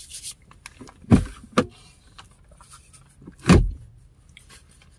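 Three dull thumps with small clicks and rustles between: things being handled and set down inside a car. The thumps come about a second in, half a second later, and about three and a half seconds in.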